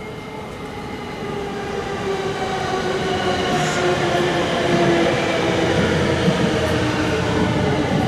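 Electric train running, its motors whining in several tones that slowly fall in pitch while the sound and a low rumble grow louder, as a train slowing on its approach.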